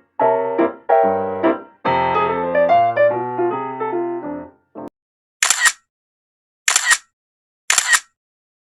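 Solo piano music playing a short phrase that ends about halfway through. It is followed by three camera-shutter clicks about a second apart.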